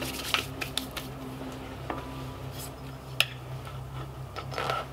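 Scattered light clicks and clinks of handling, the sharpest about three seconds in, as a person shifts on a metal ladder and handles a leather jacket, over a low steady hum.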